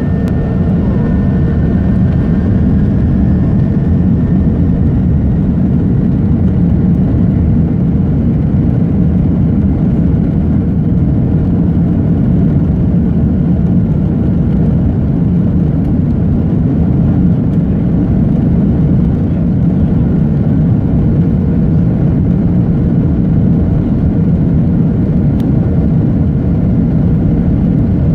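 Cabin noise of a jet airliner on the ground, heard from a window seat over the wing: a steady, even low engine rumble that neither rises nor falls.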